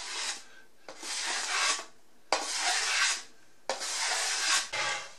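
Cedar shiplap board being hand-sanded with sandpaper on a block, trimming its edge to fit a scribed line: three long back-and-forth rubbing strokes of about a second each, with short pauses between.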